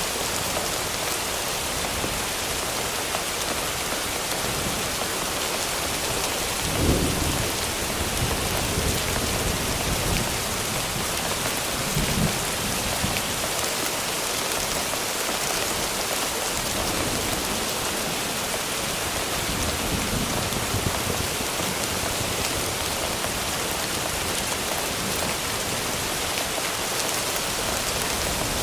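Thunderstorm sound effect: steady rain hiss with low thunder rumbling three times, the strongest about a quarter of the way in, another near the middle and a fainter one later.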